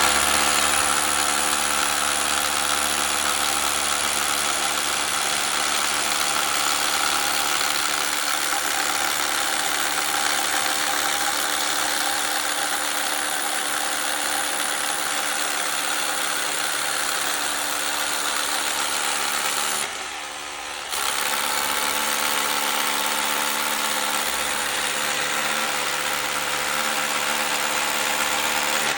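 Rotary hammer drilling a 7/8-inch hole into concrete, running steadily with a brief letup about twenty seconds in.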